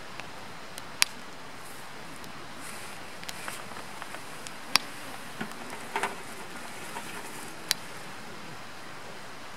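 Firewood burning with a steady hiss and scattered sharp crackles and pops, four of them louder than the rest.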